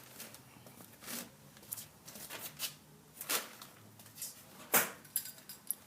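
Scattered soft rustles and clicks of hands handling things, irregular and spaced out, the loudest a little before the end.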